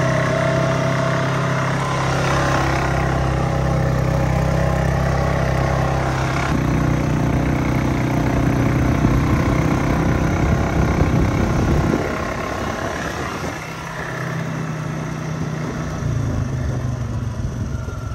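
Quad bike engine running while being ridden along a dirt track. Its note steps up about a third of the way in, drops and quietens about two-thirds through, then picks up again near the end.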